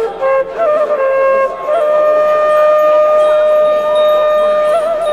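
Music: a slow solo melody in a single line, with quick trills and turns around one long held note that lasts about three seconds in the middle.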